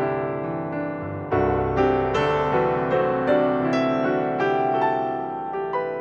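Background piano music: a gentle melody over chords, with fresh notes struck about twice a second and each one left to ring and fade.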